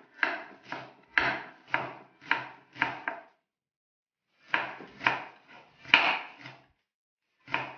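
Kitchen knife chopping green onions on a wooden chopping board, about two chops a second, pausing briefly twice.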